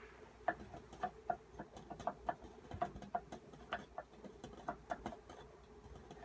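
Mini Rex rabbit grooming: a string of quick, soft clicks from its licking, about three a second at an uneven pace.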